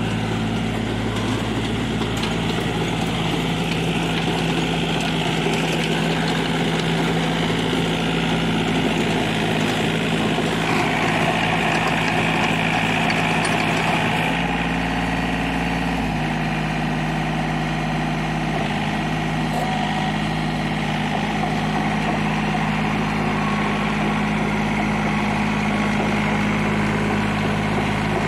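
36 hp John Deere tractor's diesel engine running steadily under load while a tractor-mounted 7-foot rotavator tills the soil. The engine note shifts slightly about halfway through.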